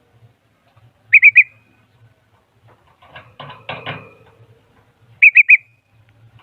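A bulbul calling: a burst of three quick, loud whistled notes about a second in, repeated the same way about four seconds later. Between the two bursts comes a short, rough, scratchy sound.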